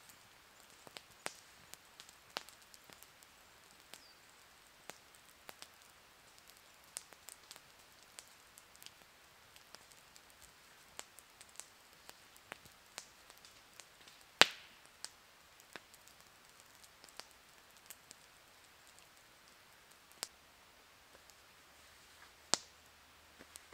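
Log campfire crackling: scattered sharp snaps and pops at irregular intervals over a faint hiss, with one much louder pop about halfway through and another near the end.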